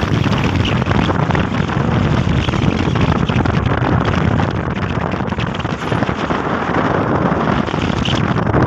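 Wind rushing and buffeting over the microphone from riding in the open back of a moving truck, with the truck's road noise underneath: a loud, steady rush heaviest in the low end.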